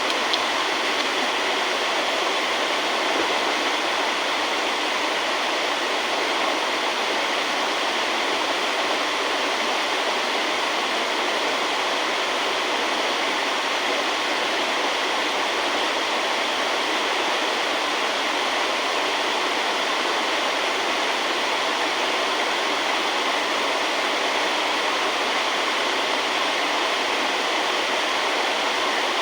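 Rushing water: a steady, unbroken rush with no breaks or changes.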